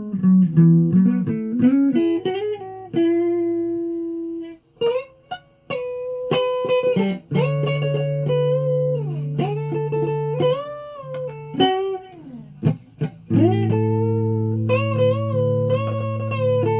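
Guitar being played: single picked notes, many bent or slid up and down in pitch, over low notes and chords left ringing, with two short breaks in the playing.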